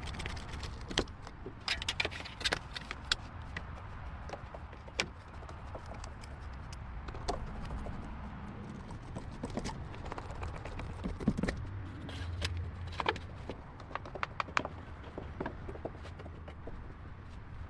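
Irregular light clicks and clinks of small hard objects being handled, scattered over a low steady rumble.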